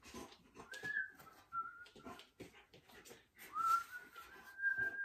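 A dog whining: three high, drawn-out whines, the last the longest. Knocks and rustles come from a sheet-metal panel being handled.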